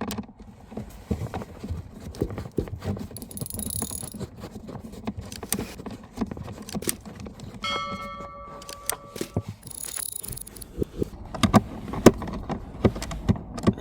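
A screwdriver with a T20 Torx bit undoing a screw from a car's plastic footwell trim panel: irregular small clicks, taps and metal rattles. A brief steady tone sounds for about two seconds around eight seconds in.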